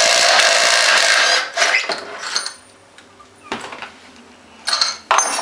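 Cordless impact wrench hammering for about a second and a half, loosening the 17 mm bolt of an ATV's secondary clutch counter-clockwise. Lighter metal clicks and knocks follow as the loosened clutch parts are handled.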